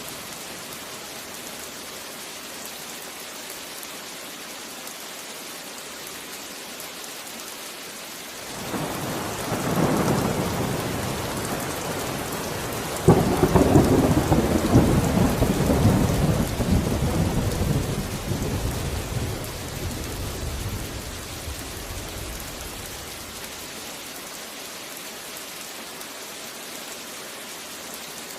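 Steady heavy rain hiss, with a thunder rumble building about eight seconds in, then a sudden sharp crack of thunder about thirteen seconds in that rolls on and fades away over the next ten seconds.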